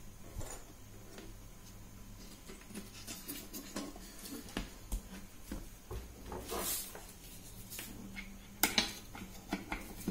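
Light knocks, clicks and scrapes of a finned LED floodlight housing being handled, turned over and laid on a table. There is a brief rustle about two-thirds of the way through and a sharper knock near the end.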